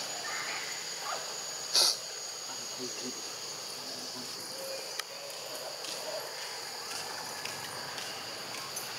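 Steady high-pitched buzzing of insects in the trees, holding two fixed pitches. A short, loud, sharp noise cuts in about two seconds in.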